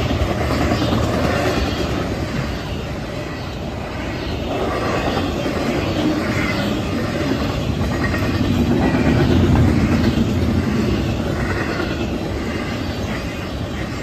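Norfolk Southern intermodal freight train's container and trailer cars rolling past on steel wheels, a continuous low rumble of wheels on rail that swells briefly a little past the middle.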